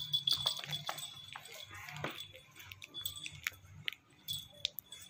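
An otter and a kitten play-fighting on a rug: scuffling and scratching with scattered light clicks and thin, high squeaks.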